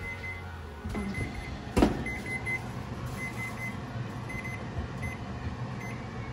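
An oven door shuts with a single loud thud about two seconds in, then the oven's touch panel gives several faint short beeps as the timer is set, over a steady low hum.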